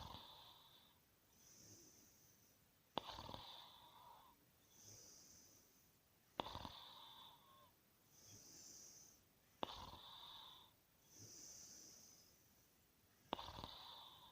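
A person snoring quietly in a slow, regular rhythm: five snores, each starting sharply, come about every three and a third seconds, with a soft breathy hiss between them.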